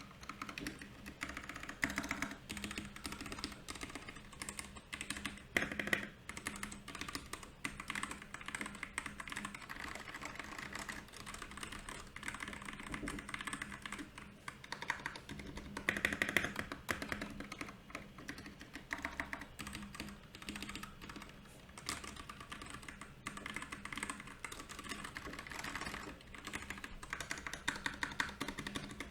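Royal Kludge RK68 mechanical keyboard being typed on steadily and rapidly, keystrokes clacking in quick runs with a few louder flurries.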